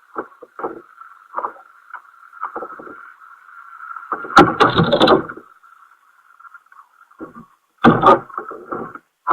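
Muffled knocks and bumps of handling in a kayak, dulled by an action camera's waterproof case, over a faint steady hum. The loudest knock and scrape comes about four and a half seconds in and lasts about a second, with another sharp knock near eight seconds.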